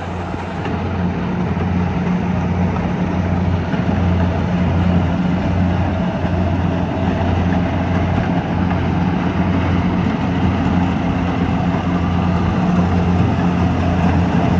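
Kubota DC70 combine harvester's diesel engine running steadily under harvesting load, with the hum of the machine's threshing and cutting gear, getting a little louder over the first couple of seconds.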